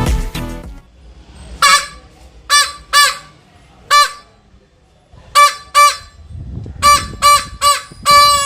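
Homemade bottle-and-balloon air horn blown in short honks, about nine of them, all at the same steady pitch, then one long held honk near the end.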